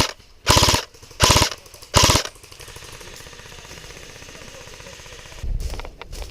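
Airsoft electric gun (AEG) firing four short full-auto bursts, each a rapid rattle of shots, about two-thirds of a second apart. Low rustling thumps follow near the end.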